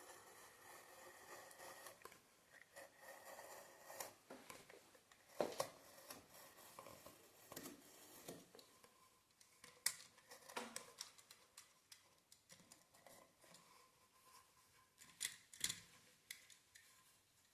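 Scissors cutting through the cloth of a snooker cushion, trimming off the excess, in faint irregular snips with a few sharper clicks.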